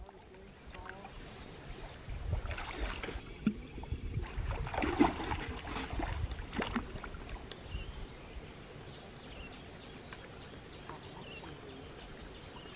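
Hands splashing and sloshing in shallow stream water while feeling along the bottom, with a run of louder splashes in the first half that settles into a steady, quieter wash of water.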